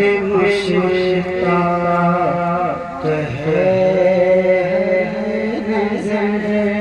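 A man singing a naat solo into a microphone, holding long notes and sliding and turning between them.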